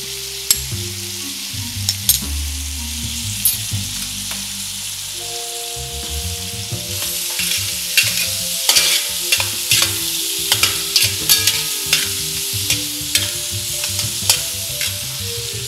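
Tiger prawns and freshly added diced tomatoes sizzling steadily in hot oil in a hammered copper lagan. A metal slotted spatula stirs them with clicks and scrapes against the pan, busier from about halfway through.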